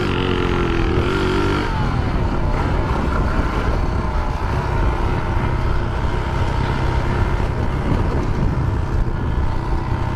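Small motorcycle engine running, its pitch climbing for the first second and a half, then dropping sharply and holding steady at a lower pitch.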